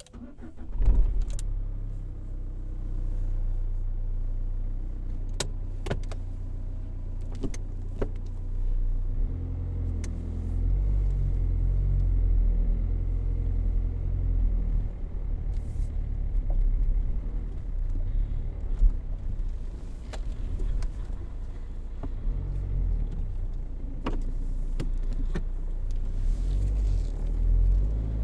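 Car engine started with the ignition about a second in, then running with a steady low rumble as the car drives, with a few sharp clicks along the way.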